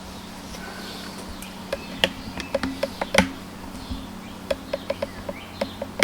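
Metal tools from a tyre plug kit being handled while a sticky rubber plug is fitted to the insertion needle: irregular small clicks and taps, some with a brief ring, starting about two seconds in over a faint steady hum.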